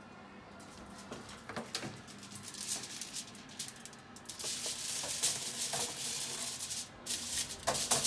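Aluminium foil crinkling and rustling as a hand handles a foil-wrapped dish on an oven rack, with a few sharp clicks near the end.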